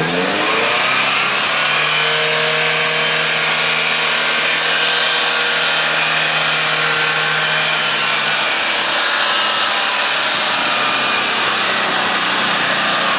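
Toyota pickup's engine running steadily as the 4x4 crawls down a rock ledge, its pitch rising slightly at the start and then holding even.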